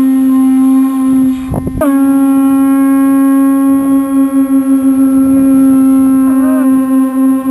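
A horn sounding one loud, steady low tone rich in overtones. It cuts out briefly about a second and a half in, then sounds again, with a short wobble in pitch near the end.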